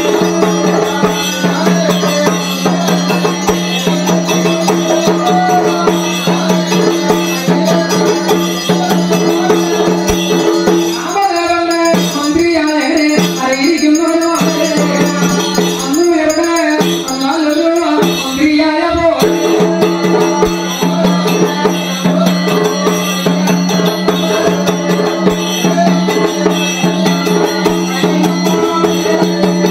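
Temple ritual music: a steady held drone under rapid shaken metal percussion. From about 11 to 19 seconds in, the drone breaks off between phrases and a voice sings over the percussion, then the drone returns.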